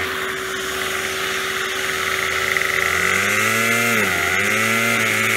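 Gas string trimmer's two-stroke engine running at idle, then throttled up about three seconds in, dipping briefly a second later and holding high again. Under it runs the steady hum of a shop vacuum.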